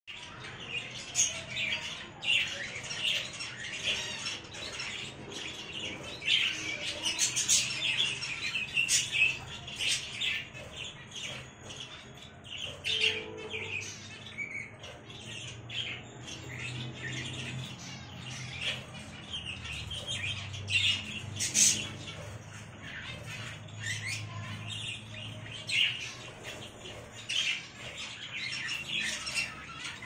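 Lovebirds chirping and squawking, a busy, continuous run of short, sharp calls.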